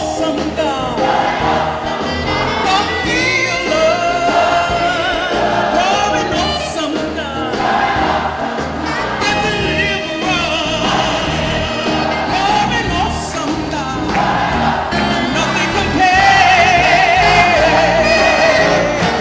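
Choir singing with instrumental accompaniment, held notes with vibrato, swelling a little louder about three seconds before the end.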